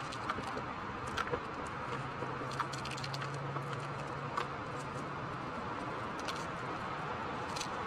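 Pressed gym chalk crumbling under gloved fingers: scattered small crunches and crackles over a steady background hiss. A faint low hum comes in for a few seconds in the middle.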